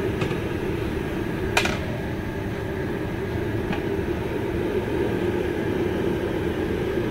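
Three sharp metal knocks, the loudest about one and a half seconds in, as a long-handled steel stirring paddle is set against the rim of a large cooking pot, over a steady low mechanical hum.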